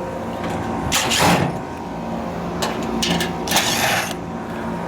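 A steady mechanical hum, with several short bursts of hissing noise over it, about a second in and again in the second half.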